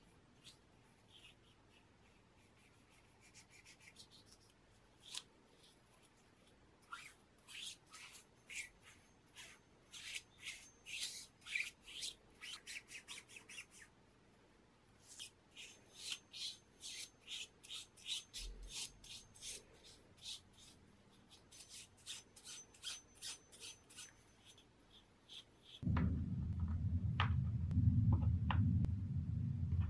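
Bristle brush scrubbing bluing liquid onto the jack hammer's steel parts in quick short strokes, about three a second, in two long runs. Near the end a louder low rumble with a few clicks comes in.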